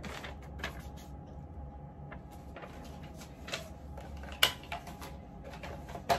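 A paper leaflet being folded and the kit's packaging handled on a table: scattered rustles and light clicks, with one sharper click about four and a half seconds in, over a steady low fan hum.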